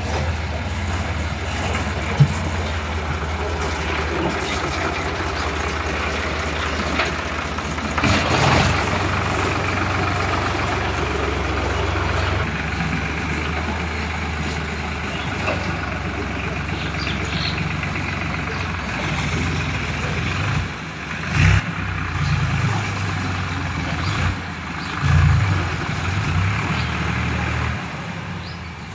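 Tractor diesel engine running steadily as it hauls a trailer loaded with soil, with a few louder surges in the second half.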